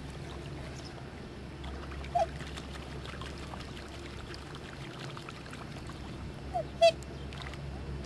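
Black swans giving short, high, piping calls: one about two seconds in, then two close together near the end, the last the loudest. A steady low hum runs beneath them.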